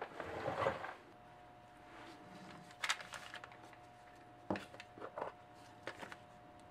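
Hands handling small parts on a workbench: a rustle in about the first second, then a few separate light clicks and taps, over a faint steady hum.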